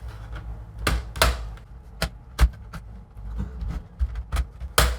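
Lenovo G50-70 laptop's plastic case being pried apart: about half a dozen sharp clicks and cracks as the top case's clips snap loose, the loudest near the end, with bits of plastic from the broken hinge mounts falling.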